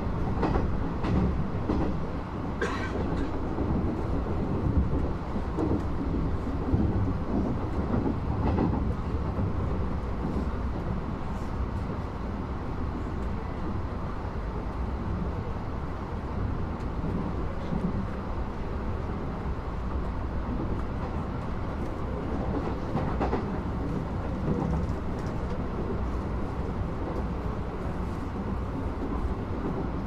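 Interior of a Nishitetsu limited express train running on the Tenjin Ōmuta Line: a steady low rumble with scattered clicks and knocks.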